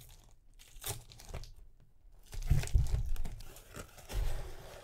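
Cardboard shipping box being pulled open by hand, with tearing and crinkling cardboard in several short bursts. The loudest bursts come between about two and a half and three seconds in, along with dull knocks from handling the box.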